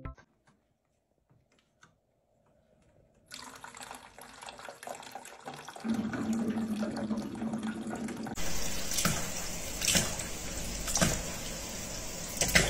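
Near silence for about three seconds, then running water: a tap pouring a thin stream, and from about eight seconds in a faucet running steadily into a stainless steel sink, with a few sharper sounds about once a second.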